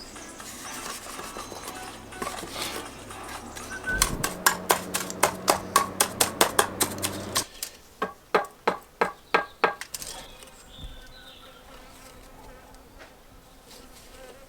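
A buzzing insect close by, a steady low drone that stops about halfway through. Over it, and just after it, comes a run of sharp taps and knocks, about three or four a second, lasting several seconds.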